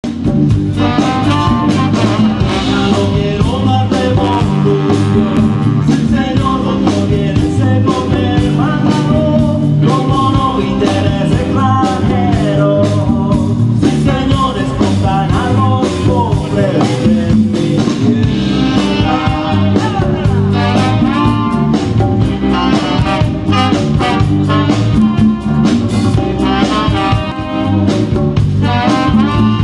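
Live band playing with a steady beat: hollow-body electric guitar, saxophone and trombone.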